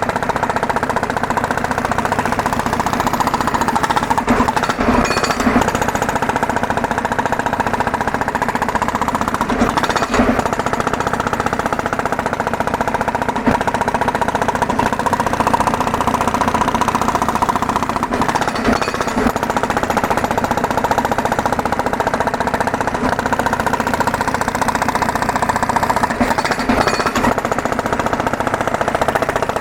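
Two-stroke petrol road breaker (drill) hammering continuously, its engine running steadily throughout with a few sharper knocks along the way.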